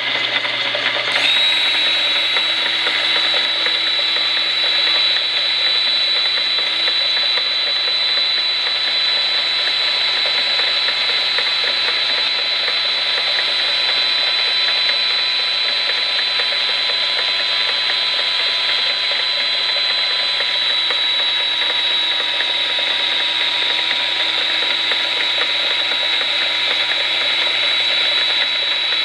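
A metal lathe runs while a die grinder (Dremel-style rotary tool) strapped to its tool post bores a 1/8-inch bit into a spinning rubber stopper at medium speed. The grinder's steady high whine sets in about a second in and holds over a dense machine noise.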